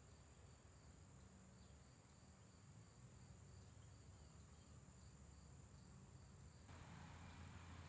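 Near silence with faint, evenly repeated cricket chirping; about seven seconds in the chirping stops and a faint hiss takes over.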